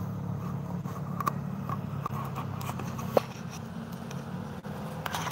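A motor vehicle's engine running steadily with a low drone, with a few light clicks and one sharp click about three seconds in.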